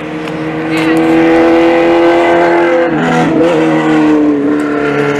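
A motor vehicle's engine running loudly, its pitch sliding slowly down, dipping briefly about three seconds in, then holding steady.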